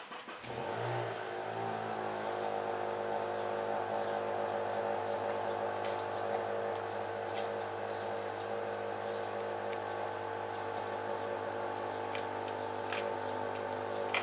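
An engine starts about half a second in, its pitch shifting briefly as it settles, then runs steadily.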